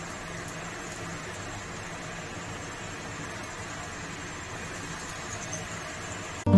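Steady background hiss with a faint low hum, no distinct events; guitar music cuts in right at the end.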